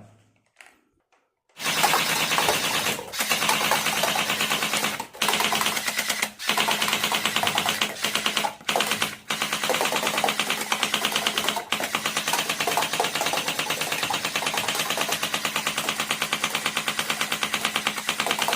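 Battery-powered toy gun firing, a fast, even rattle that runs in long bursts with a few short breaks.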